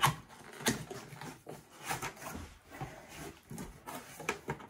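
A cardboard box being opened and handled, with two sharp knocks of cardboard near the start and then irregular scraping and rustling as the box top is lifted.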